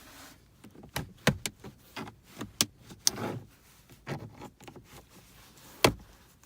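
Plastic dashboard trim and its retaining clips clicking and knocking as the trim piece is pried loose and handled: a few sharp clicks in the first three seconds and a louder one near the end, with quieter rustling between.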